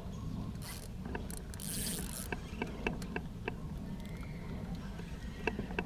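Fishing reel cranked while fighting a hooked catfish, its mechanism ticking about three times a second, with a few brief hissing rushes in the first two seconds.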